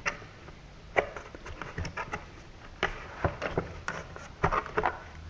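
Hand handling the clear plastic bit box inside a hard plastic drill carrying case: irregular light plastic clicks and knocks, about a dozen scattered over a few seconds.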